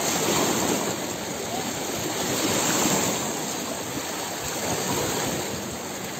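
Fast-flowing floodwater rushing past, a steady churning wash of water.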